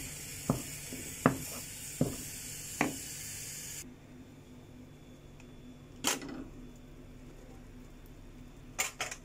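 A wooden dal masher (ghotni) churning cooked lentils into a smooth paste in a pan: a soft knock about every three-quarters of a second over a steady hiss from the simmering pan. About four seconds in the sound drops to a quieter room, broken by a single knock and then a few clicks near the end.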